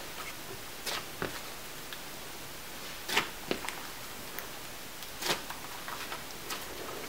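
Gel glue slime mixed with clay being kneaded and pressed by hand, giving scattered small sticky clicks and pops, the loudest about three and about five seconds in, over a faint steady hiss.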